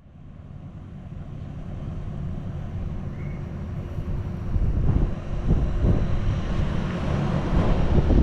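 Several 4-ton Hitachi heat pump outdoor units running in cooling mode: a steady low hum of fans and compressors with a few steady tones. It fades in at the start and grows louder with more low rumble from about halfway through.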